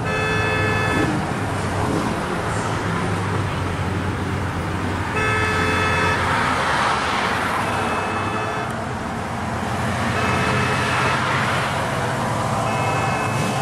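Classic Plymouth muscle car's engine running with a steady low rumble as the car pulls out slowly onto the road. A horn toots briefly about five times over it.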